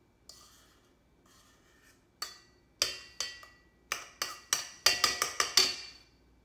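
A spoon scraping around a stand mixer's stainless steel bowl, then tapping against the bowl and beater in sharp, ringing metallic knocks. The knocks come singly at first, then in a quick run of about eight near the end.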